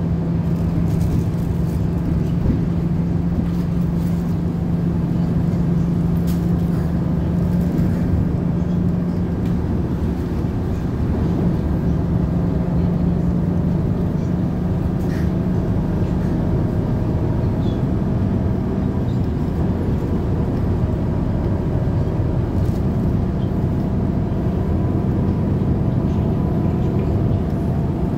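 Steady drone of the Volgabus 4298.G4 city bus's engine and running gear heard inside the passenger cabin, a low hum over road rumble, with a few faint rattles. The hum eases for a few seconds about two-thirds of the way through, then returns.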